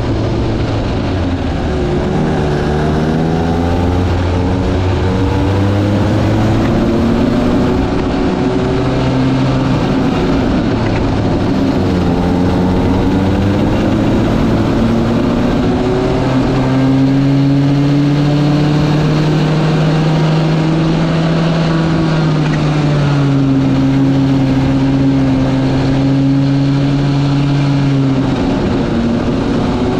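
Small go-kart engines running around a track, their pitch rising and falling as they accelerate and ease off; more than one engine note is heard at once, and one holds a steady pitch for several seconds after the halfway mark.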